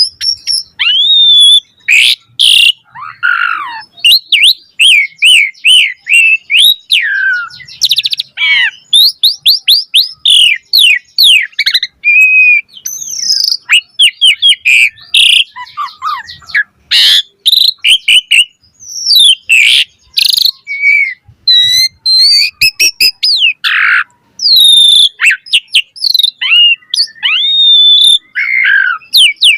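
Asian pied starling singing a long, varied song: a fast run of rising and falling whistles, chirps and sharp clicks with only short breaks.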